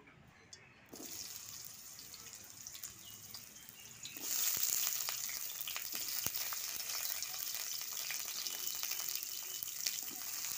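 Sliced bitter gourd frying in hot oil in a kadai: a faint hiss from about a second in, then a much louder, steady sizzle from about four seconds in as the pieces hit the oil. Light clicks of a spatula stirring them come toward the end.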